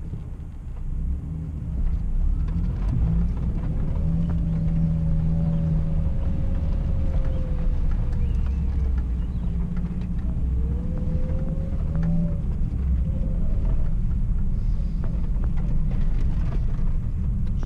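Engine and tyre rumble inside the cabin of a Suzuki Grand Vitara driving on a rough dirt track, with a faint whine that rises and falls in pitch twice as the revs change.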